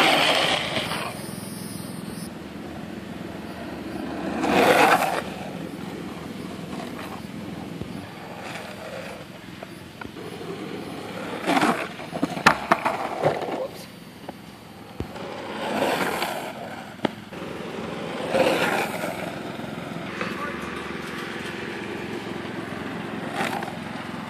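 Longboard wheels rolling over rough asphalt, with several loud swells of wheel scraping a few seconds apart, the first as the rider drops low into a slide. A handful of sharp clacks come about halfway through.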